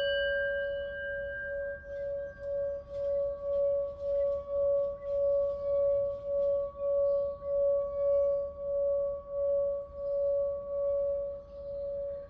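Singing bowl ringing with one steady, sustained tone that wavers in a slow wobble about twice a second. Its higher overtones fade away over the first few seconds.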